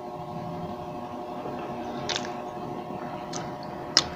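Quiet eating close to a clip-on microphone: three short clicks of fork and mouth, about two, three and four seconds in, the last the loudest, over a steady background hum.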